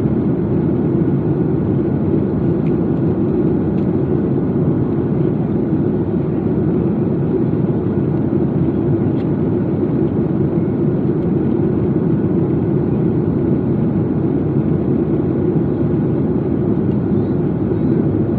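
Jet airliner cabin noise in flight: a steady, even rumble of engine and airflow noise heard from inside the cabin at a window seat.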